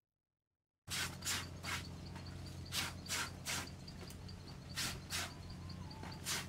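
Wet, soapy laundry being scrubbed by hand with a plastic scrub brush in an aluminium basin: short rasping brush strokes in quick groups of about three, over a low steady hum. The sound starts about a second in, after silence.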